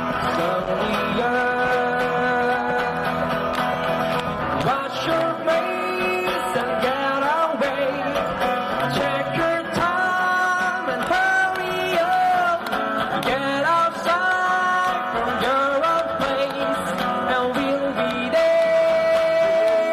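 A male singer performing a pop-rock song live over guitar accompaniment. The melody moves through short phrases and ends on a long held note near the end.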